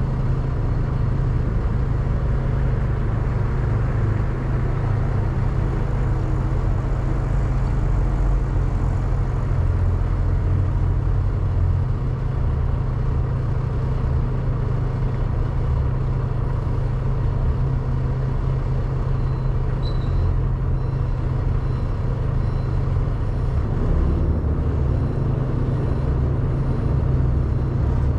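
Semi-truck diesel engine idling, a steady low rumble that holds unchanged throughout.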